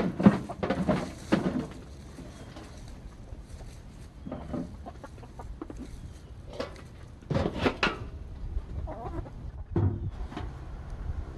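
Chickens clucking and squawking in short bursts: a cluster in the first second and a half, then scattered calls every second or two.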